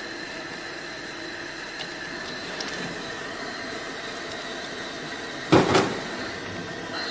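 Steady machinery hum with a faint high tone. About five and a half seconds in comes a short loud knock with two quick peaks, from the metal heating-head parts and fittings of a tube-sealing machine being handled.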